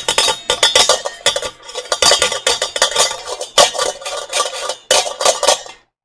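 Nested stainless steel mixing bowls rattling and clanking against each other as the stack is jiggled by hand: a rapid, irregular run of metal-on-metal clinks with ringing tones, stopping just before the end. It is the clatter of stacked bowls with nothing between them.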